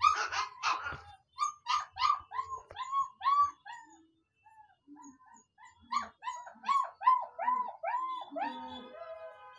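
German Shepherd puppy whining: a run of short rising-and-falling cries, about two to three a second. The cries stop for about a second midway, then start again and end in a longer, lower cry.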